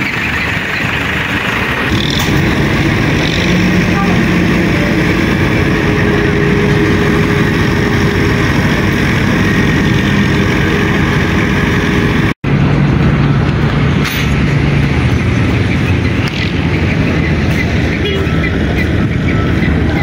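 Heavy construction machinery, excavators and other diesel plant, running steadily at a busy building site, with people's voices mixed in. The sound drops out for an instant about twelve seconds in, then carries on.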